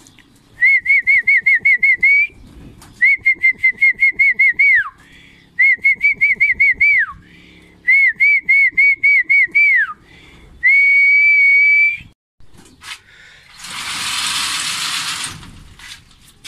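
Pigeon keeper whistling the feed call to his homing pigeons, the signal that food is coming: four warbling whistles of under two seconds each, each rippling about six times a second and ending in a falling glide, then one steady held whistle. A short burst of rustling hiss follows near the end.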